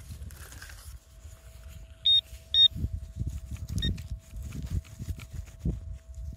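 Metal detector giving two short high beeps about two seconds in and a fainter one near four seconds, over a faint steady hum, as it sounds off on metal in the dug soil; low knocks and scuffs of handling and digging run beneath.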